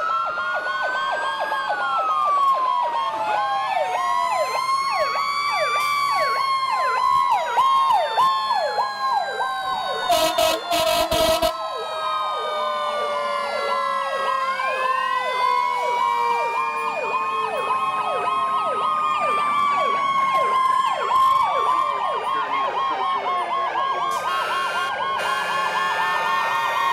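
Several fire apparatus sirens sounding at once: slow rising and falling wails overlap a fast, rapidly repeating electronic sweep, and one wail winds slowly down in pitch. About ten seconds in, a loud horn blast lasts around a second and a half.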